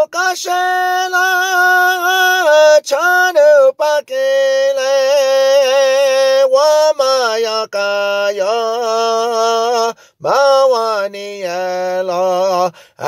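A single voice singing long held notes with a wavering, vibrato-like pitch and slides between them, unaccompanied, in several phrases broken by short pauses.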